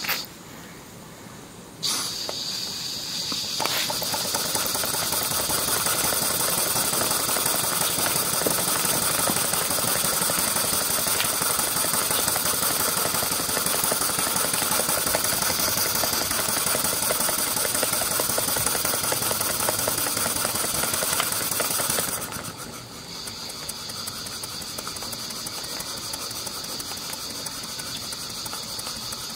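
Stuart Victoria single-cylinder horizontal model steam engine running fast on steam, a loud hiss with a rapid beat. After a short lull at the start the hiss picks up about two seconds in, and about 22 seconds in it drops to a quieter, steady level.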